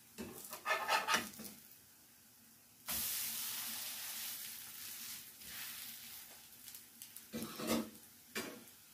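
A slotted spatula scrapes under a potato pancake in a nonstick frying pan. About three seconds in, a sudden burst of sizzling starts as the pancake is turned onto its raw side in the hot butter and oil, and it slowly fades. Near the end there are a few more scrapes and a clatter as the spatula is set down.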